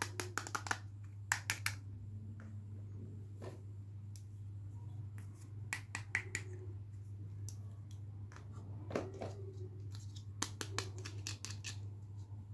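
Small plastic doll accessories clicking and tapping as they are handled and set down on a table, in scattered clusters of sharp clicks over a steady low hum.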